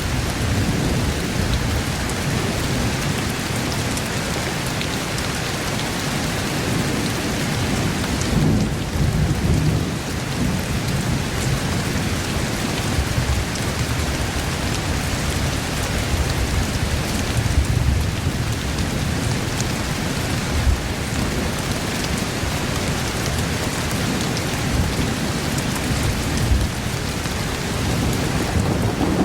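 Steady heavy rain with rolls of thunder rumbling underneath, swelling about eight seconds in and again around seventeen seconds.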